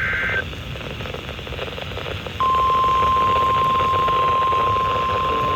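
NOAA Weather Radio alert signal: the tail of a SAME digital header burst ends just after the start, leaving radio hiss. About two and a half seconds in, the steady 1050 Hz warning alarm tone comes on and holds, the tone that precedes a broadcast warning.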